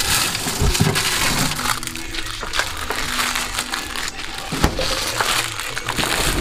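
Plastic bag rustling and crinkling as it is handled close up, with many small crackles throughout.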